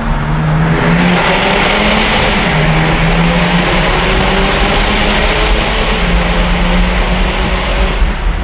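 BMW 325d's 3.0-litre straight-six diesel, fitted with a custom de-catted stainless twin-exit exhaust, pulling hard through a road tunnel, heard from inside the car. The exhaust and road noise get louder about a second in and ease off near the end.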